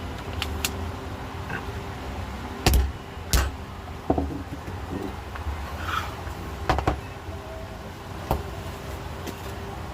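Several sharp clicks and knocks, the loudest a pair about three seconds in, over a steady low rumble.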